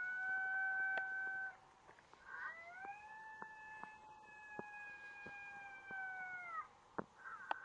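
Coyote howls: two long howls, each sliding up at the start, held at a steady pitch for several seconds and dropping away at the end, with a third starting near the end. Faint scattered ticks between them.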